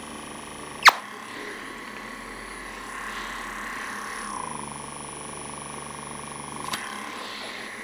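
Lumae Skin microdermabrasion wand's suction motor running with a steady whine as it is drawn over the skin, its low hum changing about halfway through. A sharp click comes about a second in and another near the end.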